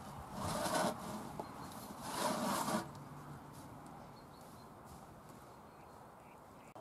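Fine enviromesh insect netting rustling as it is hauled out of a plastic bin, in two loud bursts, one about half a second in and one about two seconds in, then only faint rustling.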